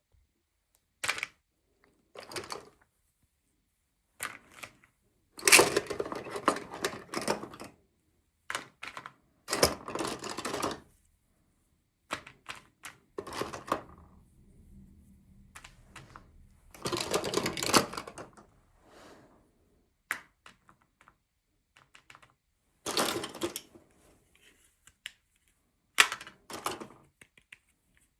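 Unboxing sounds of small plastic toy packaging and doll pieces being handled. Scattered sharp clicks and taps alternate with a few longer crinkling, rustling stretches, separated by silent gaps.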